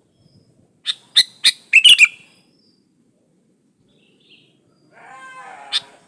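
Sooty-headed bulbul calling: three sharp chip notes about a second in, then a short loud warbled phrase. After a pause comes a buzzy, grating call near the end, topped by another sharp note.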